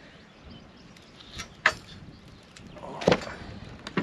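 A handful of sharp knocks and clunks on the old wooden hull as fittings are worked loose, the two loudest about a second and a half apart.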